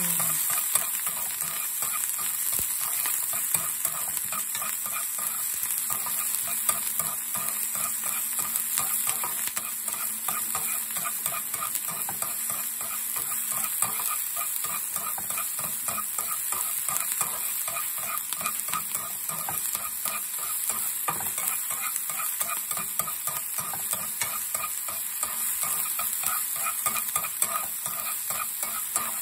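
Diced red onion sizzling and crackling in hot oil in a nonstick frying pan, with the light scrape and tap of utensil tips stirring it around the pan.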